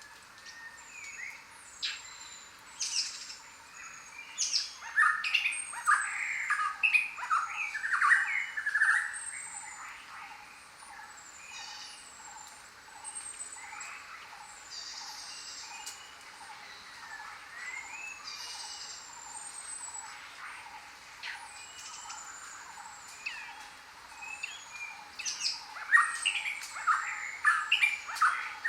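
Many jungle birds calling together. Short high whistles that slide downward repeat again and again, with clusters of louder rapid chattering calls about five seconds in and again near the end.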